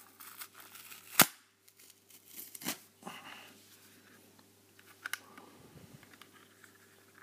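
Stylus retail packaging being torn open by hand: short scattered rips and crinkles, with one sharp snap about a second in.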